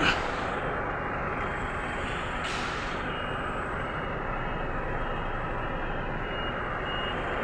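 Hino 700 truck's E13C diesel engine running steadily, with a short hiss about two and a half seconds in.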